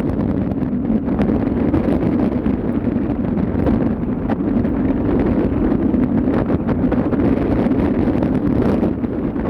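Steady low rumble of a ship under way, with wind buffeting the microphone.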